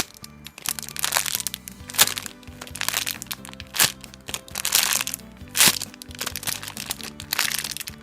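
Plastic packaging crinkling and crackling as it is handled, with several sharp crackles, over soft background music.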